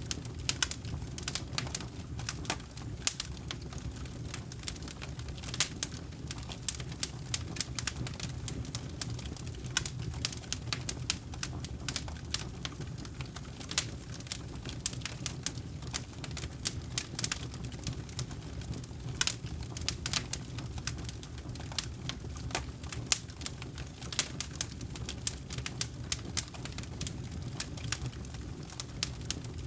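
Campfire crackling: burning wood giving irregular sharp pops and snaps, several a second, over a steady low rumble.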